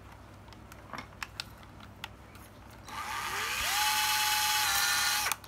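Black & Decker cordless drill-driver run with nothing in the chuck. After a few light handling clicks its motor spins up about three seconds in, the whine rising in pitch, runs steadily, then stops sharply near the end as the brake catches.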